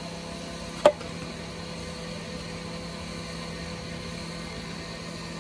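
A steady mechanical hum, with a single sharp knock about a second in.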